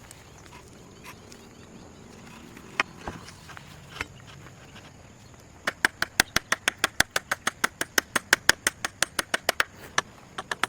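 A few scattered knocks, then from a little over halfway in a fast, even run of sharp knocks, about five a second, like a blade or tool striking wood in quick strokes.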